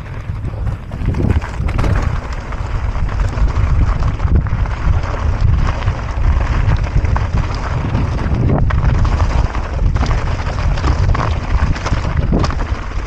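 Wind buffeting the microphone on a fast mountain-bike descent, over the rumble of tyres on a rough dirt trail, with scattered sharp clicks and knocks from the bike over bumps.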